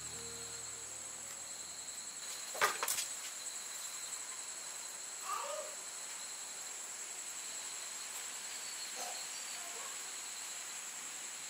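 Insects chirring steadily at a high pitch. A sharp double click comes about two and a half seconds in, and a brief faint falling call about five seconds in.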